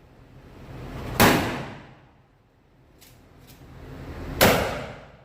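12-gauge shotgun fired twice, about three seconds apart, each shot a sharp blast with a decaying echo. Two faint clicks come between the shots.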